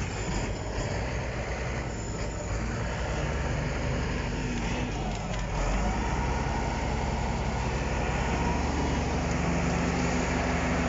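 Shantui SD16 crawler bulldozer's diesel engine running under load as its blade pushes against an uprooted tree's root ball. It gets a little louder about six seconds in.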